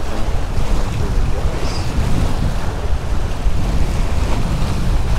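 Strong wind buffeting the microphone, over choppy waves splashing against the large rocks of a jetty. Loud and steady.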